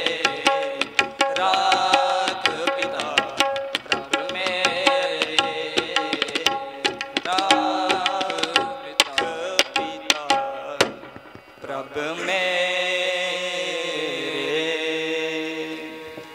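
Sikh kirtan: young men singing a Gurbani shabad to harmonium, with tabla strokes running quickly under the melody. About eleven seconds in the tabla stops, and the piece closes on a long held harmonium chord and sung note that fades out.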